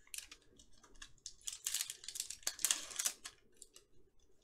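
Thin foil wrapper of a Panini Absolute Football card pack being crinkled and torn open by hand: a run of crisp crackles and small rips, thickest about a second and a half in and again near three seconds.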